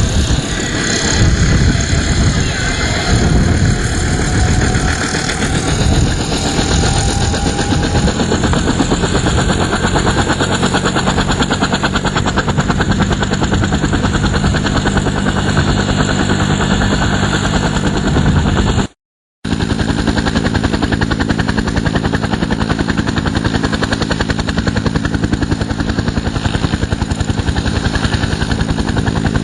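Bell UH-1 Iroquois (Huey) helicopter running on the ground: its turboshaft engine drives the two-blade rotor with a fast, steady chopping beat. The engine's pitch rises in the first few seconds, then holds at a steady tone, as the rotor comes up to speed before liftoff. The audio cuts out for a moment near the middle.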